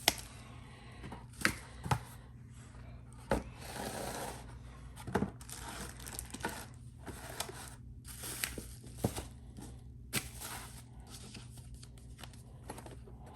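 Packaging being handled while unboxing: plastic bags and wrapping rustling and tearing, with scattered sharp clicks and knocks as parts are picked up and set down.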